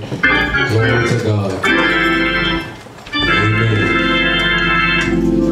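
Organ playing long sustained chords with a steady low bass, breaking off briefly about three seconds in before the next held chord.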